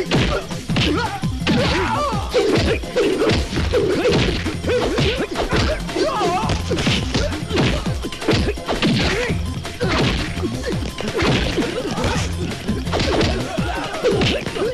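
A run of repeated hits and crashes, coming thick and fast throughout, with music underneath.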